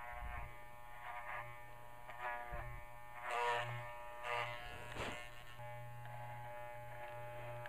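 Electric dog clippers buzzing steadily as they shave a dog's coat, swelling briefly in tone a few times as the blade works through the fur.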